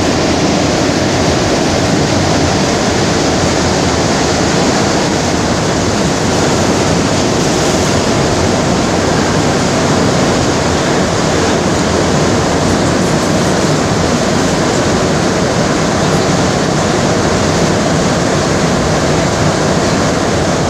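Montreal rubber-tyred metro train running through a tunnel, heard from inside the car: a steady, loud rumble and hiss of running noise.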